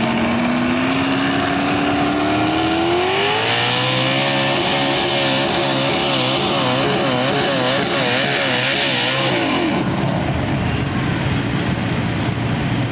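Mini modified pulling tractor's engine at full throttle under load. The revs climb steadily over the first four seconds, then hold high with the pitch wavering up and down, and drop away suddenly about ten seconds in as the throttle comes off.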